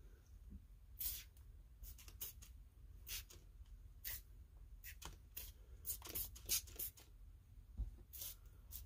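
A hand trigger spray bottle spritzing soapy water onto a chainsaw's crankcase in about a dozen short, irregular squirts, to show up an air leak by its bubbles.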